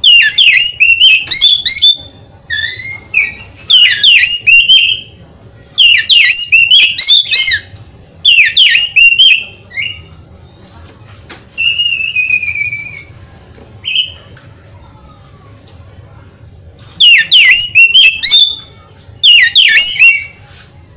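Oriental magpie-robin singing: loud bursts of fast, swooping whistled phrases, each a second or two long, repeated after short pauses. Midway there is a run of clear, falling whistled notes, then a pause of a few seconds before the phrases start again.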